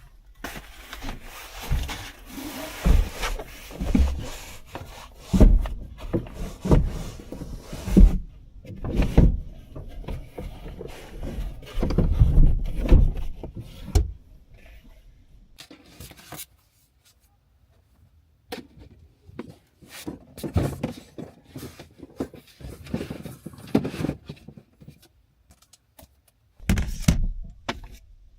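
Irregular handling noises in a small enclosed space: knocks, thumps and rubbing of objects being moved about, busiest in the first half, a brief near-silent pause, then scattered clicks and knocks.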